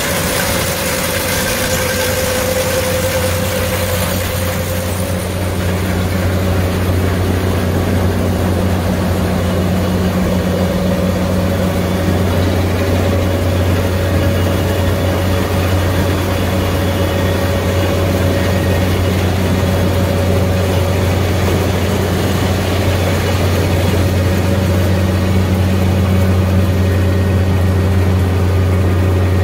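Gleaner R75 combine's diesel engine running steadily with an even low hum.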